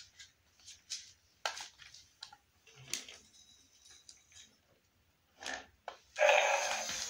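Irregular light clicks and taps of a plastic battery-operated walking dinosaur toy moving and knocking on a glass tabletop, with a brief louder noise about five and a half seconds in.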